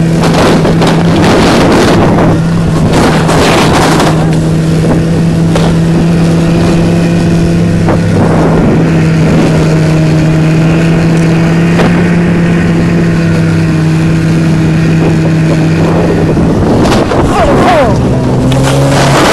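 Snowmobile engine pulling a towed sled, running at a steady pitch, with a rushing wind and snow noise that swells at the start and again near the end. The engine note drops lower near the end.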